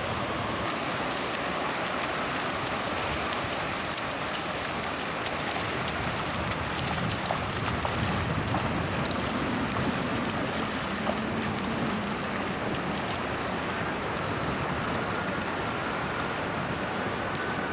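Steady rushing noise of sea waves and wind, swelling slightly about halfway through.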